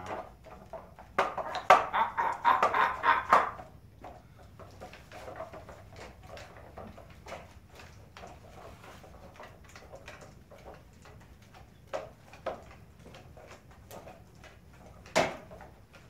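A seagull puppet's cloth wings rustle and flap, and its rods and handle mechanism click as it is swung about. There is a dense burst of rustling from about a second in, lasting a couple of seconds, then softer scattered rustles and clicks, with one sharp click near the end.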